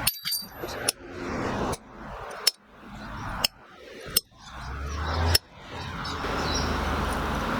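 Hammer blows on steel hinge stock, marking the blanks: about seven sharp metallic strikes roughly a second apart, some with a brief high ring, and a rushing noise swelling between them.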